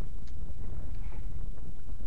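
Wind buffeting the camera microphone as a steady low rumble, with a few faint light clicks over it.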